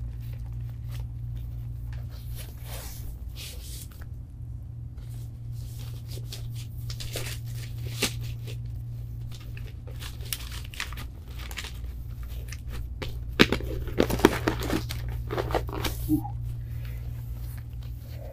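Paper and stiff card pages of a large box-set book being handled and turned, with scattered rustles and a cluster of sharper rustles and knocks about two-thirds of the way in, over a steady low hum.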